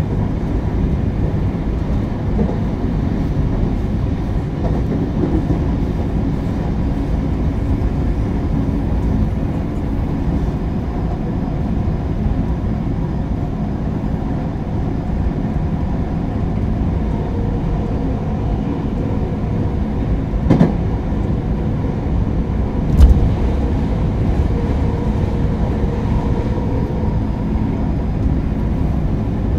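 Running sound of a JR West 223 series 0 subseries electric multiple unit with Toshiba GTO inverter, heard from inside the car: a steady low rumble of the wheels on the rails, with two sharp knocks about two-thirds of the way through. A faint steady tone joins in the second half.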